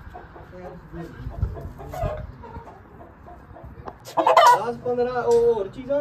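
A rooster crowing once, starting about four seconds in: one loud call of about a second and a half that holds its pitch, then drops at the end. Before it, soft intermittent clucking from hens.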